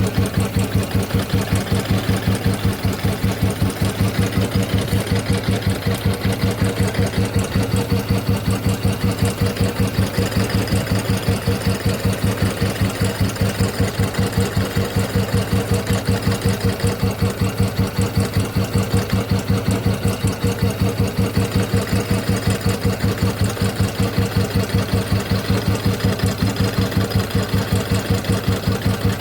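Motorcycle engine idling steadily with an even beat of about six or seven pulses a second, on a bike being worked on for a clicking, slapping timing-gear noise.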